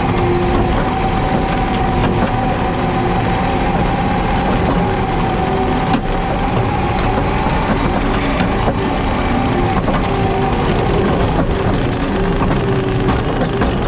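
JCB Teleskid skid steer's diesel engine running steadily while driving a 7-foot Jenkins bush hog rotary mower, a steady whine over a dense low rumble.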